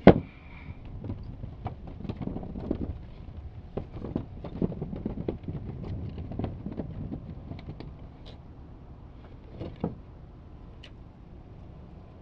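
Sharp knock at the start, then irregular knocks and rustling from handling a spool of rope anchor rode on wooden dock boards, with one more knock near the end.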